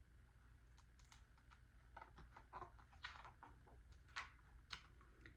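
Near silence with faint, scattered light clicks and taps, a dozen or so in a few seconds.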